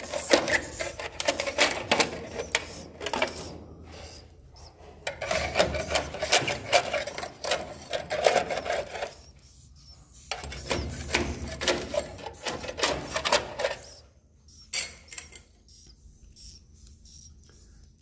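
Edible-nest swiftlets clicking and chirping in fast, dense runs, with a short lull partway through, thinning to a few scattered clicks near the end.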